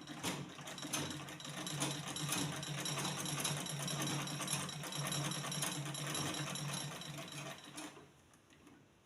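Manual Butterfly sewing machine, pedal-driven, stitching a straight line through fabric at its longest (loose) stitch setting: a steady run of rapid needle-and-mechanism clatter that stops about eight seconds in.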